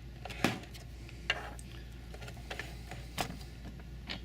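Irregular light clicks and taps from hands working the thread through a sewing machine's thread guides and hooks, over a low steady hum.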